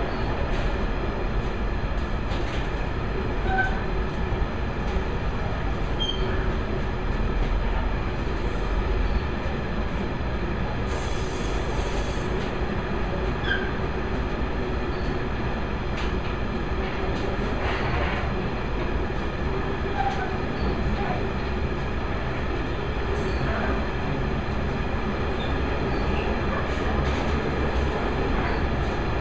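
Loaded open box wagons of a mineral freight train rolling steadily past: a continuous rumble of steel wheels on rail, with scattered clicks over the rail joints and short high wheel squeaks.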